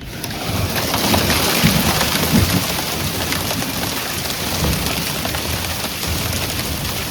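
Heavy storm downpour pelting hard surfaces, a dense, loud patter of countless drops or stones, with low rumbles about one to three seconds in.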